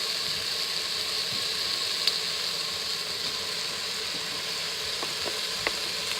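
Cubed pork and chopped onion sizzling in an Instant Pot's inner pot on the sauté setting, a steady hiss with a few light clicks.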